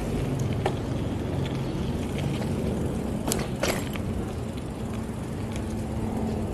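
Steady low rumble of wind and road noise from a bicycle ride on city streets, with a couple of sharp clicks about three and a half seconds in.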